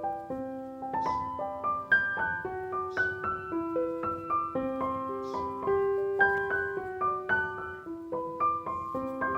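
Background piano music: a gentle melody of single notes over sustained lower notes, about two or three notes a second.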